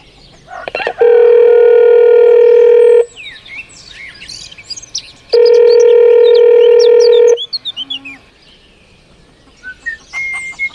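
Two long, steady horn blasts, each about two seconds, with birds chirping between and after them.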